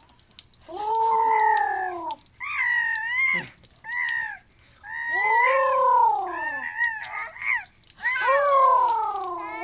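A baby's high, sing-song vocalising: about six drawn-out calls in a row, each arching up and falling in pitch, the baby's babbling 'talk'.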